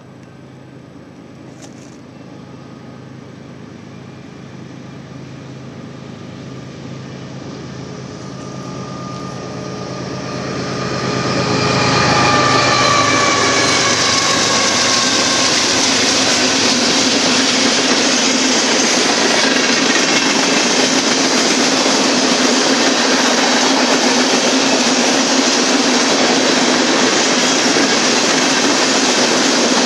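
BNSF diesel freight locomotive approaching and growing steadily louder, its engine passing about twelve seconds in with a drop in pitch; after that the steady rumble and clatter of loaded tank cars rolling past on the rails.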